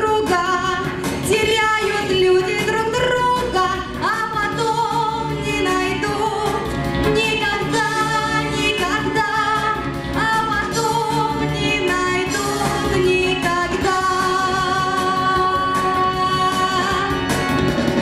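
A woman singing into a handheld microphone over a pop backing track, with sliding sung phrases and a long held note near the end.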